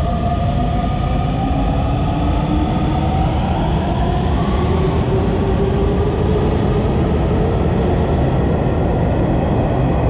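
Hanshin 9300 series electric train pulling out and accelerating: a motor whine in several tones that slowly rise in pitch, over the steady rumble of the wheels on the rails.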